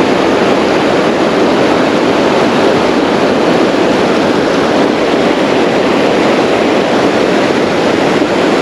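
Steady rush of fast-flowing creek water, an even, unbroken noise.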